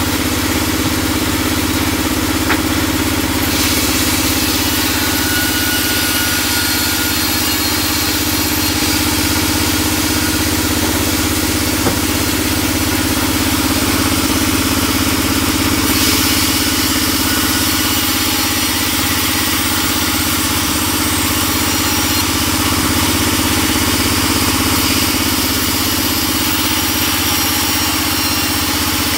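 Vertical band saw resawing timber boards: a loud, steady machine hum with the hiss of the blade cutting through the wood. The hiss grows brighter about four seconds in and again about halfway through.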